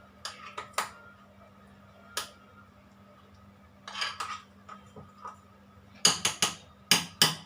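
A mixing utensil clinking and knocking against the side of a bowl while stirring cake batter, in irregular strikes that come faster and louder near the end.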